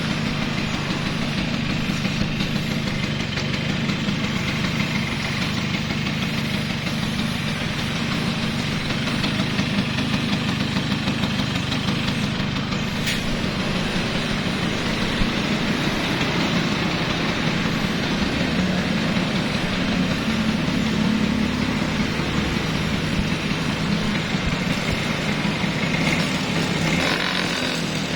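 Vespa Exclusive 2 scooter's two-stroke engine running steadily.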